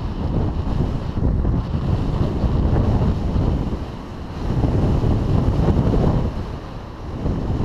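Rushing wind buffeting a GoPro Hero3's microphone on a bicycle riding fast downhill, a heavy low rumble that eases briefly about four seconds in and again near the end.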